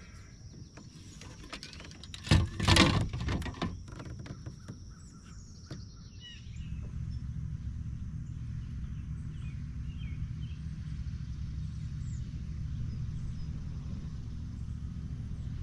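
Water splashing and handling noise beside a kayak, loudest about two and a half seconds in. After about six seconds a steady low rumble takes over, with birds chirping faintly.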